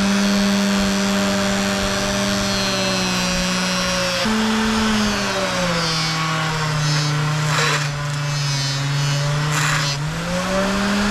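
Miniature bench grinder running with a steady motor hum while a metal shaft is buffed on its polish-loaded wheel. From about five seconds in, the motor's pitch sags as the part is pressed on, with two brief hissing rubs. Near the end it speeds back up.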